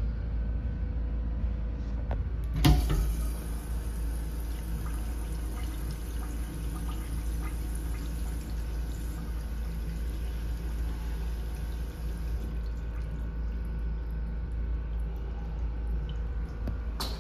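2015 Mansfield Brevity urinal flushing: a sharp clack as the flush is triggered about three seconds in, then water rushing into the bowl for roughly ten seconds before easing off.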